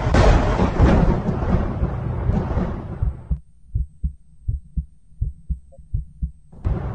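A heavy rumbling noise that cuts off suddenly about three seconds in, followed by a heartbeat sound effect: low, separate thumps, about three a second. Near the end the rumbling swells back in.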